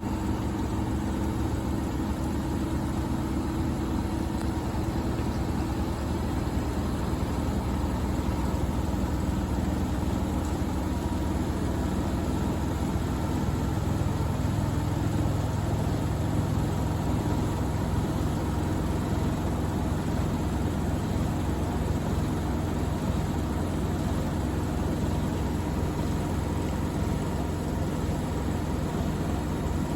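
Two Bosch front-loading washing machines, a Serie 4 and a Logixx 8, running side by side in their final high-speed spin at 1400 rpm. The sound is a steady hum and whine from the drums and motors, with a deeper tone that grows stronger about halfway through.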